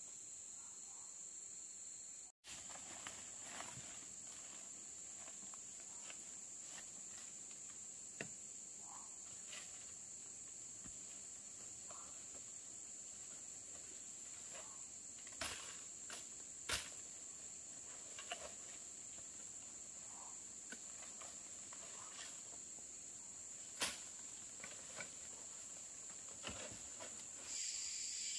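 Steady high-pitched chirring of insects, like crickets, with a few sharp light clicks and snaps scattered through it. A louder buzzing sets in near the end.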